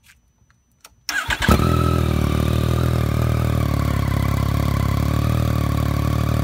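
2016 Yamaha FZ-09's 847 cc inline-three engine breathing through an M4 carbon fiber slip-on exhaust, cold-started: about a second in the starter cranks briefly, the engine catches almost at once and settles into a steady idle.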